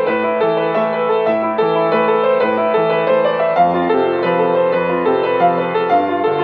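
Solo upright piano being played: a flowing pattern of repeated notes over a bass line that moves lower about halfway through.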